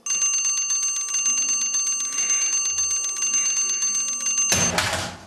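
Mechanical bell alarm clock ringing, its hammer rattling rapidly against the bells, starting suddenly. It stops about four and a half seconds in with a brief loud clatter.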